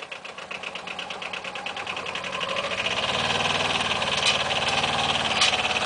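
Arctic Cat 700 diesel ATV's twin-cylinder diesel engine running with a rapid even clatter, growing louder about two seconds in as it pulls away under load towing a beech sawlog on a logging arch. Two short sharp knocks come near the end.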